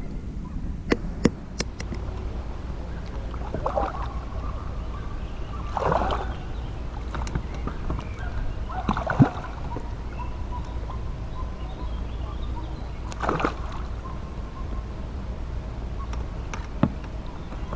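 Water splashing and sloshing at a small inflatable boat, a short splash every few seconds over a steady low rumble, with a few sharp clicks near the start.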